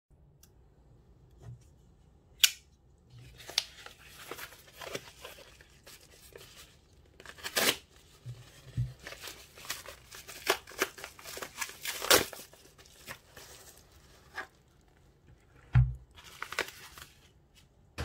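A yellow padded mailer being torn open by hand: paper tearing and crinkling, with scattered sharp clicks and a couple of dull thuds as the package and the box inside are handled.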